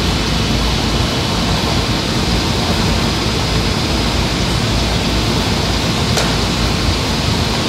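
Zund G3 flatbed cutter running as it cuts adhesive vinyl: a loud, steady, even noise with a faint hum under it, and one sharp click about six seconds in.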